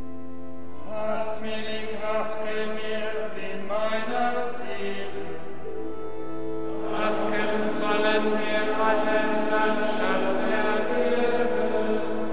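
Monks' choir chanting, accompanied by a pipe organ holding steady sustained notes. The chant comes in two sung phrases with a short pause between, while the organ carries on under it.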